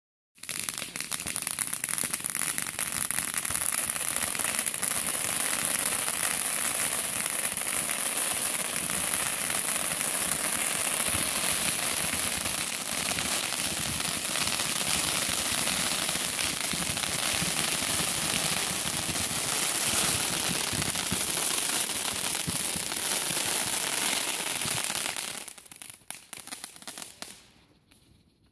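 Fireworks crackling in a dense, unbroken rapid chain of small bangs for about 25 seconds, then thinning to scattered pops and dying out near the end.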